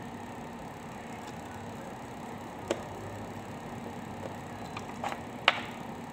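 Sharp clicks of a laptop cooling fan and heatsink assembly being handled: one click about halfway through, then a quick pair and a louder click near the end, over a steady background hum.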